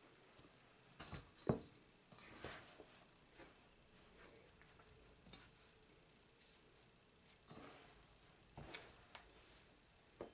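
Faint, irregular scraping and rubbing of a silicone spatula stirring flour and liquid into a dough in a stainless steel mixing bowl, with a few soft taps. The sharpest tap comes about a second and a half in.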